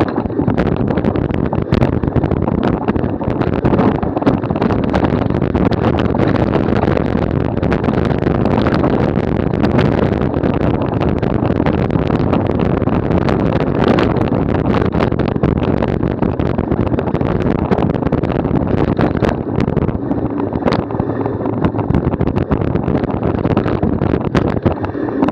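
Bicycle ridden over rough ground: a steady rush of wind on the microphone and tyre noise, with frequent sharp knocks and rattles from the bike.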